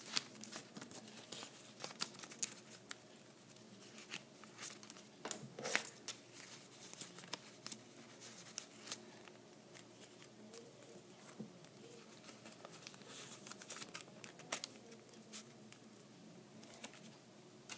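Origami paper rustling and crinkling faintly as it is handled, folded and creased by hand, with many short crisp ticks scattered irregularly throughout.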